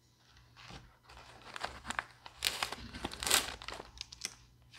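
Plastic packaging crinkling and rustling in a string of irregular handling noises as plastic-wrapped first-aid supplies are pushed back into a fabric pouch, the loudest crinkle a little past three seconds in.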